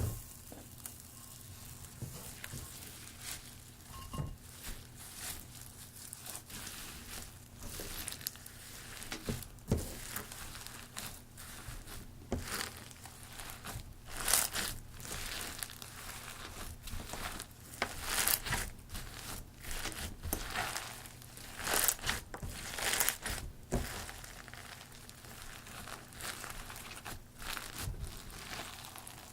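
Crunchy slime (glossy slime mixed with foam beads) being squeezed and pressed by hand, crackling and crunching in irregular bursts that come thicker and louder in the middle stretch.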